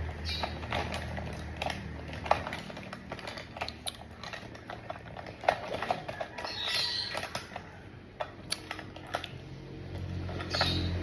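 Small hard objects clicking and clattering as they are handled and set down, in irregular light taps, over a steady low hum.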